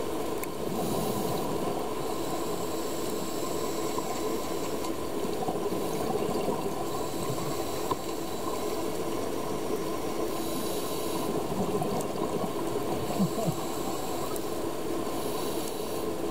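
Underwater sound through a dive camera's housing: a steady hum and rushing noise, with three bursts of high hiss several seconds apart that fit a scuba diver's regulator breaths.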